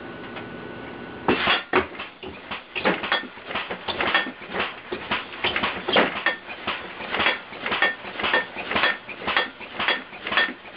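Pneumatic bed-shaking alarm rig, driven by an air compressor, going off: a fast, uneven clatter of knocks and rattles, several a second, that starts abruptly about a second in after a faint steady hum.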